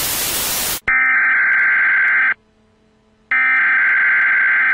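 A burst of TV static, then a harsh electronic emergency-broadcast alert tone that sounds twice, each blast about a second and a half long, with a short gap between.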